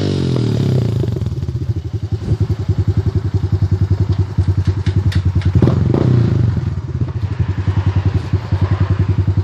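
2011 Honda TRX 250X single-cylinder ATV engine through a Two Brothers aftermarket exhaust, dropping back from a rev to a steady, pulsing idle. It gives a brief blip of throttle about six seconds in, then settles back to idle.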